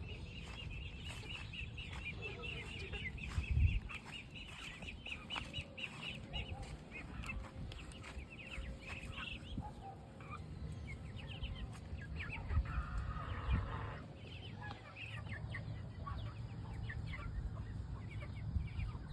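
Farmyard chickens clucking amid many short, high bird chirps, busiest in the first half, over a low rumble.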